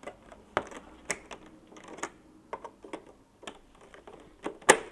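Irregular clicks and knocks of hard plastic as the electrical connection box of a split-system indoor unit is fitted back into place, with one sharp, louder click near the end.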